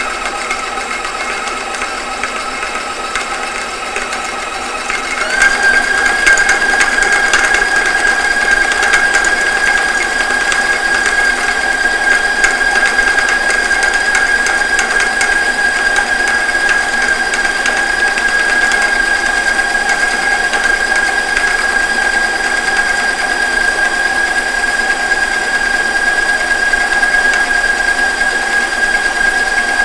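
Stand mixer motor running steadily, its flat beater creaming butter and sugar in a stainless steel bowl. Its whine jumps higher and louder about five seconds in, then holds steady.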